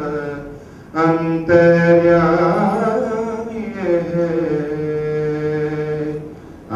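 A man singing a Kannada song into a microphone: after a short breath he holds one long note for about five seconds, bending it slightly, and lets it fade near the end.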